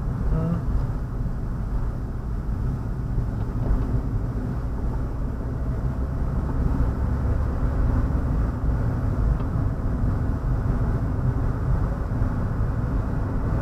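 Car driving at moderate speed heard from inside the cabin: a steady low rumble of engine and tyres on the road.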